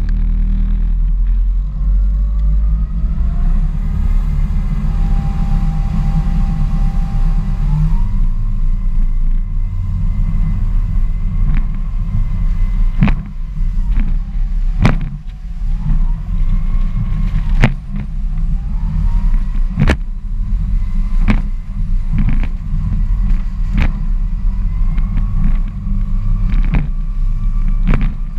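Parker 800 Baltic RIB running at speed: a deep rumble of engine and wind buffeting the microphone, with the engine's whine rising in pitch over the first several seconds as the boat accelerates. From about eleven seconds in come sharp knocks every second or two as the hull slams through the waves.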